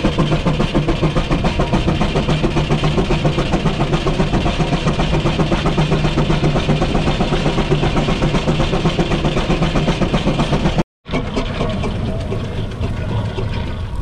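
1874 John Fowler steam ploughing engine running, its exhaust beating rhythmically at about five beats a second. The sound breaks off abruptly about eleven seconds in, then the engine is heard again, less even.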